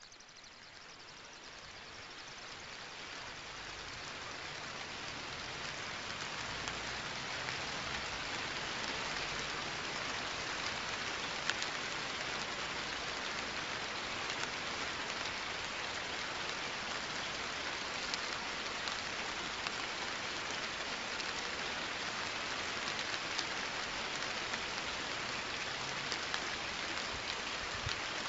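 Steady rain: a dense hiss with scattered drop ticks, fading in over the first few seconds and then holding steady.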